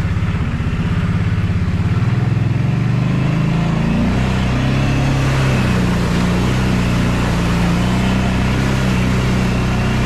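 ATV engine running as the machine is ridden, its pitch rising and dipping with the throttle in the first few seconds, then holding fairly steady.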